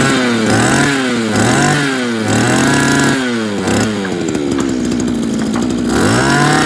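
Small two-stroke brush cutter engine running and being revved in repeated short throttle blips, about one every three-quarters of a second, with a steadier stretch near the end before a last rev. It is a test run of a freshly fuelled used engine that started straight away.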